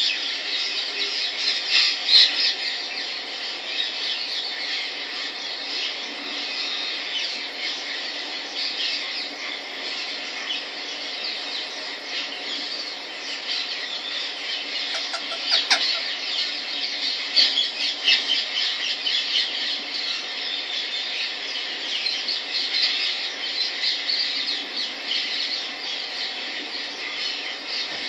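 Indian ringneck parrot chattering continuously in high-pitched calls, with one sharp click about halfway through.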